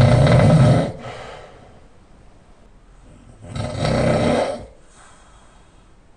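A man snoring loudly with his mouth open while lying on his back. One long snore is already underway and ends about a second in, followed by a softer breath. A second long snore comes about three and a half seconds in.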